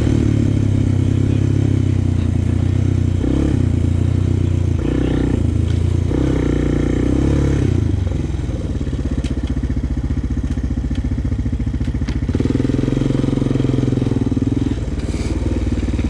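Honda sport ATV engine running, its pitch shifting in steps through the first half, dropping lower about eight seconds in and picking up again about four seconds later.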